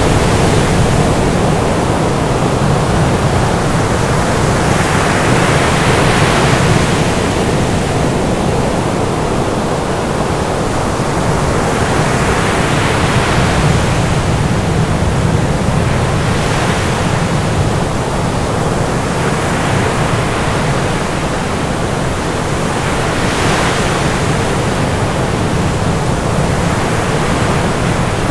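Steady, dense rushing noise at all pitches, with a brighter hiss swelling and fading roughly every five to seven seconds.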